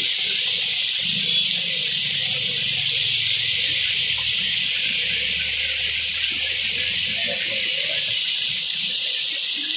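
Torrential rain pouring down, a steady hiss.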